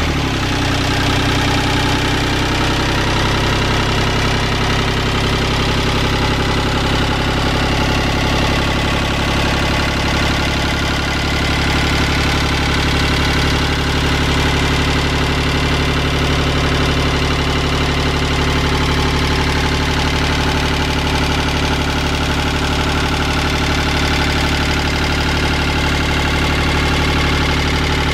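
The yacht's small inboard marine diesel engine idling steadily, its low, even note settling within the first second or so.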